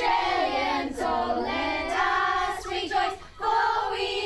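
Children singing together in held, slowly changing notes, with a short break about three seconds in.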